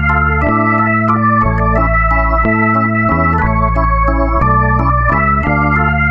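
Background music: sustained keyboard chords over a bass line, changing every half second or so at an even level.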